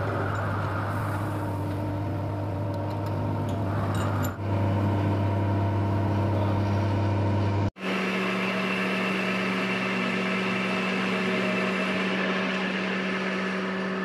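Metal lathe running, its chuck spinning while a cutting tool faces a small steel valve part: a steady machine hum with several steady tones. About eight seconds in the hum cuts out for an instant and comes back at a different pitch.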